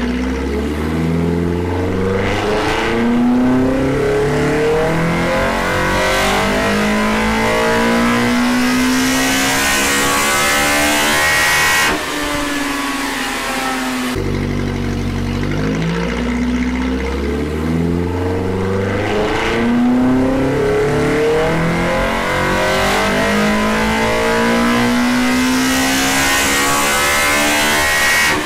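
Big-cam, naturally aspirated Toyota 4A-GE 1.6-litre twin-cam four-cylinder on individual throttle bodies, making two full-throttle dyno pulls. Each time the pitch climbs steadily through the revs for about ten seconds, then cuts off sharply at the top. The exhaust cam is advanced 10 degrees for these runs.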